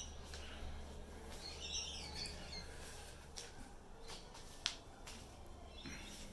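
Quiet room tone over a steady low hum, with a few faint light clicks and one sharper click a little past the middle; a brief faint high chirp sounds near two seconds in.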